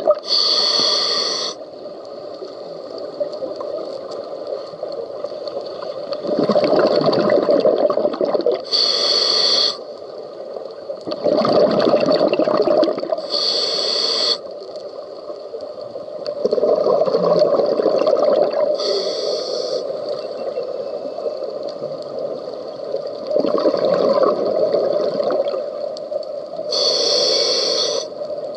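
Scuba diver breathing through a regulator underwater in a slow cycle: short hissing inhales through the demand valve alternate with longer rushes of exhaled bubbles. Five inhales and four bubble bursts.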